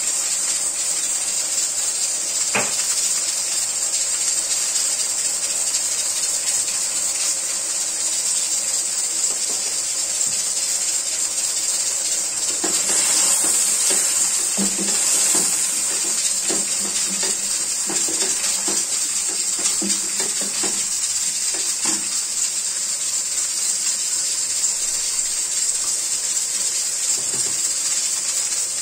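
Liver pieces with onions sizzling in a steaming stainless-steel pan, a steady hiss. Between about 12 and 22 seconds in there is a run of short knocks and scrapes as a spatula stirs the pan.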